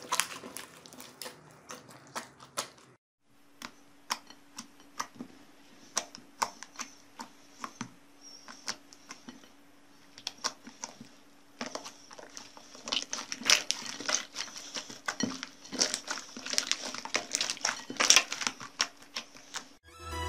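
Slime being squeezed, stretched and folded by hand, giving off a stream of sticky clicks and pops that grow thicker in the second half.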